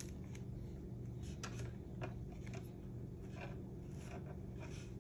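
Scattered light clicks and scratchy rustles of small objects being handled on a tabletop, over a steady low hum.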